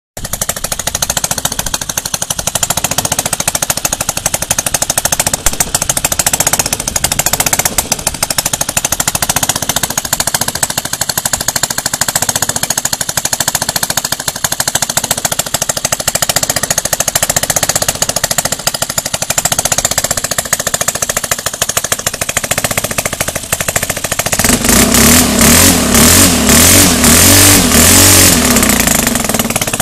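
Stihl 4-MIX single-cylinder four-stroke engine, converted for RC use, running on a test stand and spinning a propeller. About 24 seconds in it gets louder and surges in rapid pulses for around four seconds, then settles back.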